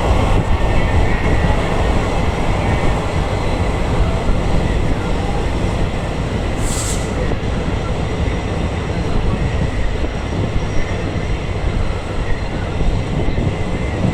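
Train hauled by an EMD diesel locomotive running at speed: a steady rumble of wheels on the track with the diesel's hum. A brief hiss about halfway through.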